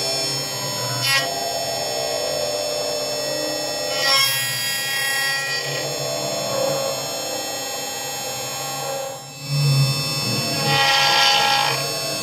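6040 CNC router spindle running while an end mill cuts steel: a steady whine with several spells of harsher, higher cutting noise. These come about a second in, around four to five seconds, and loudest near the end.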